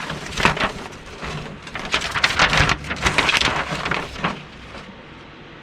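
Crackly rustling and crinkling of model kit packaging being handled, in irregular bursts that are busiest in the middle.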